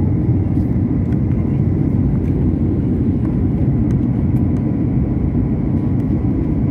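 Steady low rumble of an Airbus A320-family jet's engines and airflow heard inside the passenger cabin during the climb after takeoff, with a faint steady high whine over it.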